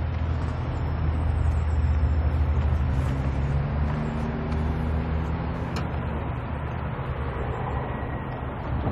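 Diesel locomotive engines of a Norfolk Southern train running with a steady low drone.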